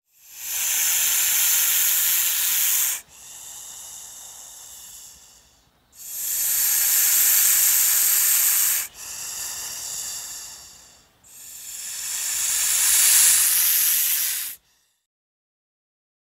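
Common European adder (Vipera berus) hissing: three long, loud hisses of about three seconds each, with quieter hisses between them.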